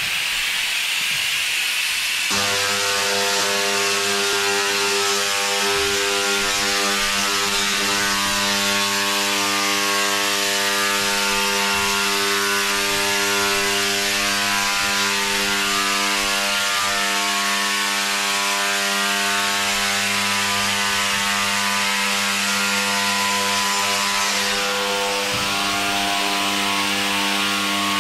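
Handheld laser cleaner ablating the surface of a corrugated metal roof sheet: a hiss, then from about two seconds in a steady harsh buzz over a wide hiss that holds to the end.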